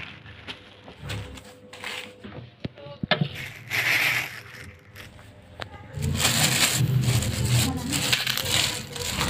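Plastic bag and sachet packaging rustling and crinkling as they are handled, with a few sharp clicks, busier in the second half.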